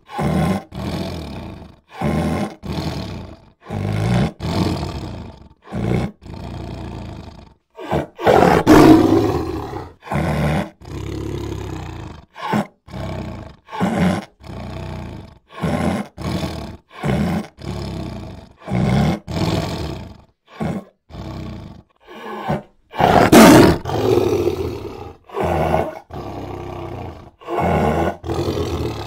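Big cats roaring in a rapid string of short bursts cut apart by brief silences, the loudest roars about nine seconds in and again near twenty-three seconds.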